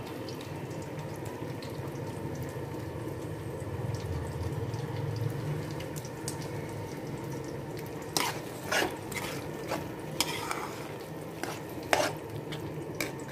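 Mashed aubergine masala sizzling steadily in a pan as a metal spoon stirs it. In the second half the spoon scrapes and clinks against the pan several times.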